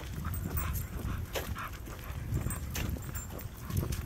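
Walker and three leashed dogs moving along a paved path: footsteps and the dogs' claws clicking on the asphalt, with a dog making a few short sounds.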